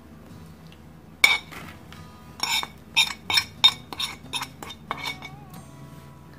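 Metal spoon clinking and scraping against a ceramic plate and bowl: one sharp clink a little over a second in, then a quick run of about a dozen ringing clinks, as spices are scraped off the plate into the bowl.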